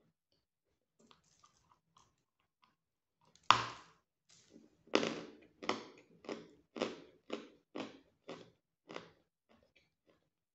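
Dry croutons being bitten and chewed: one loud crunching bite about three and a half seconds in, then steady crunching chews about two a second, getting quieter toward the end.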